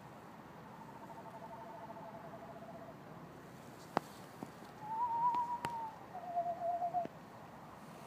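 Screech owls trilling. Two soft, even, quavering trills at different pitches overlap for about two seconds, then a louder trill rises a little and steps down to a lower pitch before stopping. A few sharp clicks fall between and during the calls.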